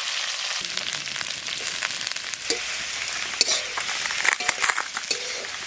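Sliced onions and green chillies sizzling steadily in hot oil in a steel kadai. From about half a second in, a flat metal spatula scrapes and clicks against the pan as they are stirred.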